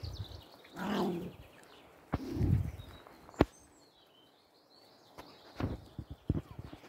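A pack of small dogs and Samoyeds playing on grass, with two brief low dog grumbles about one and two seconds in, a sharp click near the middle, and scuffling near the end. Birds chirp faintly in the background.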